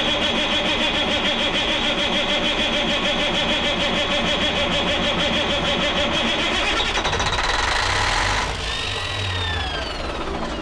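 Caterpillar 3406B diesel cranking over on its starter with an even, rhythmic chug under a steady whine, not catching. About eight and a half seconds in the cranking stops and the whine falls away in pitch as it spins down. It won't fire because its injection pump is giving no fuel: the shutoff circuit fuse is blown and the fuel rack is stuck in the off position.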